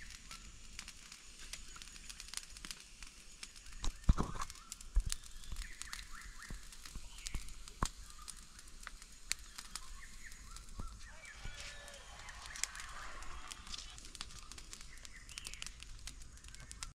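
Wood fire crackling with scattered small pops and clicks under a hanging tray of pork being smoked, over a faint steady hiss. A couple of dull thumps come about four and five seconds in.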